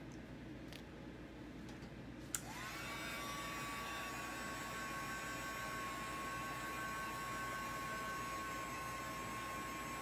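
Small handheld heat tool (blower) switched on with a click about two seconds in; its motor whine rises quickly, then holds a steady high pitch over a rush of blown air.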